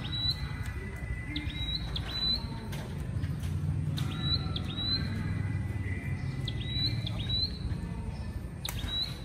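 A bird calling again and again with short, high chirps, often two in quick succession, over a steady low rumble of city traffic, with a sharp tap near the end.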